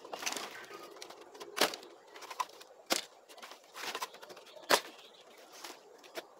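Sharp knocks of wood striking wood, four of them at uneven gaps of one to two seconds, with rustling of dry branches between.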